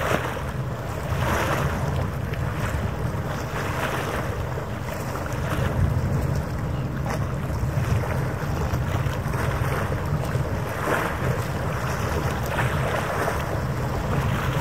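Wind buffeting the microphone over the wash of harbour water, with a steady low rumble and a noise that swells and eases every second or two.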